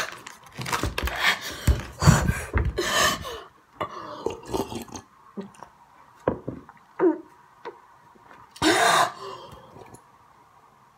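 A boy coughing and clearing his throat, his mouth burning from spicy hot Cheetos. The sounds are densest in the first few seconds, then come scattered small clicks and one more loud cough-like burst about nine seconds in.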